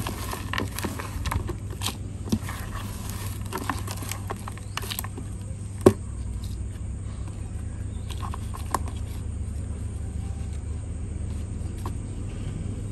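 Dry coconut coir and crumbled rain tree leaves being scooped by hand into a plastic nursery pot, giving scattered rustles and light clicks, with one sharp knock about six seconds in. A steady low rumble runs underneath.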